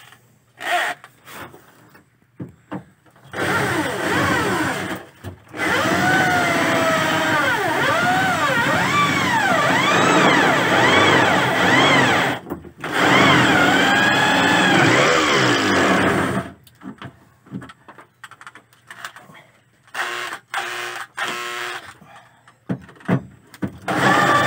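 Corded electric drill boring into a truck bed's sheet metal, with a self-tapping metal screw chucked in as an eighth-inch bit. The motor runs in a long stretch starting a few seconds in, its pitch rising and falling as it bites, broken off briefly twice, then comes back in short bursts near the end.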